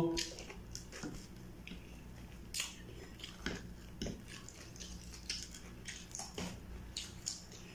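Close-up chewing of kwek-kwek, battered deep-fried eggs: irregular soft smacks, clicks and small crunches, a few a second.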